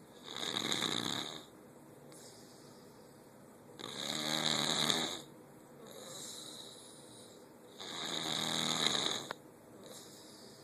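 Snoring: three long, loud snores about four seconds apart, each lasting a second or so, with quieter breaths in between.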